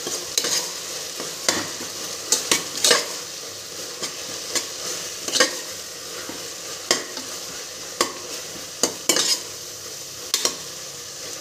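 Steel spatula stirring and scraping tomato-onion masala as it fries in oil in a pressure cooker, with a steady sizzle throughout. Sharp scrapes and clicks of the spatula against the pot come at irregular moments.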